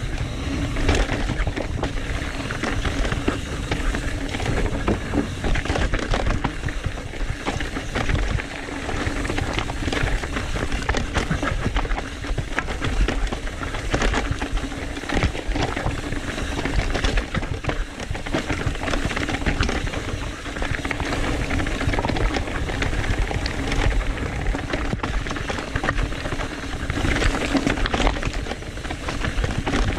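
2018 Trek Fuel EX 7 full-suspension mountain bike descending a rough rocky trail: a continuous clatter of tyres and frame rattling over rocks, with constant wind rumble on the microphone.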